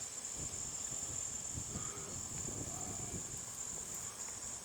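Steady high-pitched chirring of background insects, over a low, uneven rumble.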